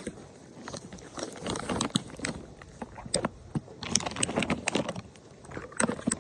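A horse chewing crunchy treats: irregular crunches, thickest around two and four seconds in.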